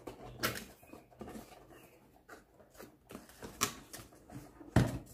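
Cardboard reel box being opened and unpacked by hand: scattered rustles, scrapes and clicks of cardboard flaps and packing, with sharp knocks about half a second in and after three and a half seconds, and the loudest, a thump, near the end.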